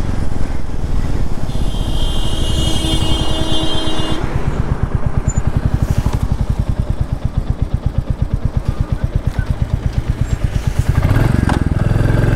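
Royal Enfield Classic 350's single-cylinder engine running under way at road speed, with an even, pulsing exhaust beat. A horn sounds steadily for about two and a half seconds, starting about a second and a half in.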